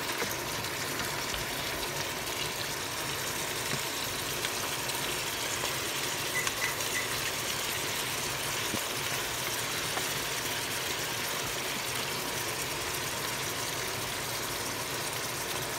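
Pieces of salmon sautéing in a hot stainless steel pan, a steady sizzle.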